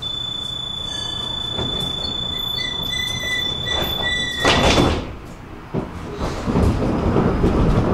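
Tram door-closing warning: a steady high tone with a pulsing beep over it, then the sliding doors shut with a loud burst about four and a half seconds in. After that the tram's running noise builds as it starts to move off.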